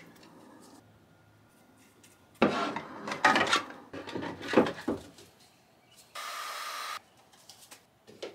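Hard 3D-printed plastic prop parts handled, knocked and rubbed together on a wooden workbench as they are glued up, a flurry of knocks and scrapes, followed by a short steady hiss lasting under a second.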